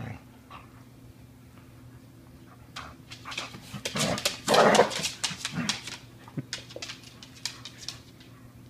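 A Border Collie tearing at a rope toy: a run of scuffs, thumps and growly dog noises starts about three seconds in. It is loudest around the middle and trails off near the end.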